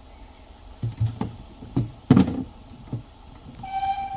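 A series of heavy thuds of carriage slam doors being shut along a stationary heritage train, the loudest about two seconds in. Near the end a short steady whistle tone sounds.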